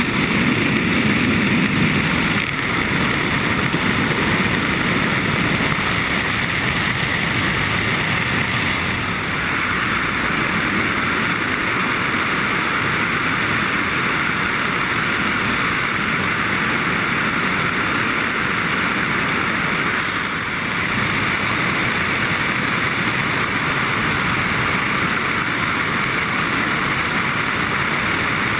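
Steady rush of air and engine noise through the open door of a light aircraft in flight, dipping slightly twice.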